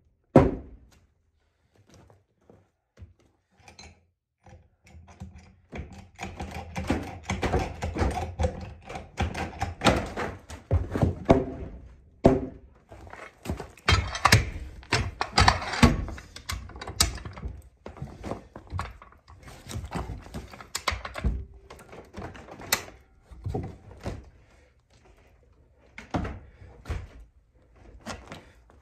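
A sledgehammer knocking a pressure-treated 6x6 timber sill into place, followed by the clunks of a high-lift farm jack being set and ratcheted. The blows and clunks come at irregular intervals, with scraping and knocking in between.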